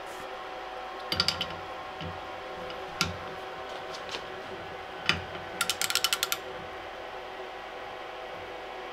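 Click-type torque wrench on a 17 mm socket being worked on a nut held in a bench vise: a few single sharp clicks, then a fast run of ratchet clicks a little past halfway. The wrench, set to 45 Nm, does not release at once, which the owner takes as a sign that the electric ratchet had tightened the nut to less than its rated 50 Nm.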